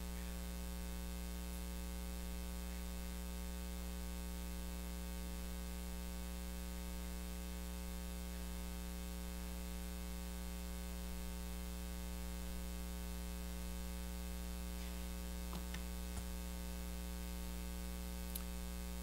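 Steady electrical mains hum with a layer of hiss, unchanging throughout; a few faint clicks near the end.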